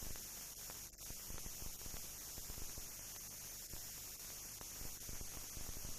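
Steady hiss and low hum with faint scattered crackles, and a brief dropout about a second in: the noise floor of a silent film transfer, with no sound from the scene itself.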